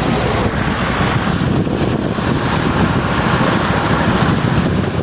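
Loud, steady rushing of water as a vehicle pushes through deep floodwater, with wind noise on the microphone.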